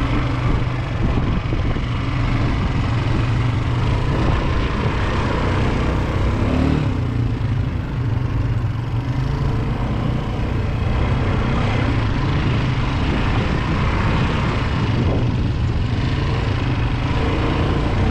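ATV engine running steadily while being ridden, a loud, even low engine note with no clear revving.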